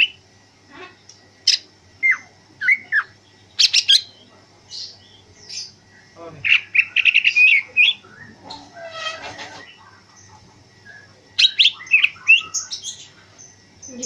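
Male greater green leafbird (cucak ijo) singing in loud bursts of short sharp notes and quick gliding phrases, with quieter gaps between. A fast run of notes comes about halfway through and another near the end, as the bird sings in its fired-up 'ngentrok' state.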